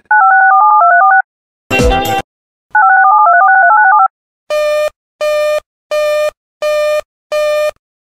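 Two quick runs of electronic touch-tone (DTMF) dialing tones, each lasting about a second, with a short harsh burst of noise between them. They are followed by five evenly spaced beeps, about two every three seconds, with a sixth just starting at the end.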